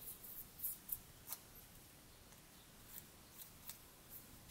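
Faint, scattered light ticks and rustles of a small die-cut cardstock piece being handled and worked with a pointed craft tool, about eight small clicks spread over a few seconds.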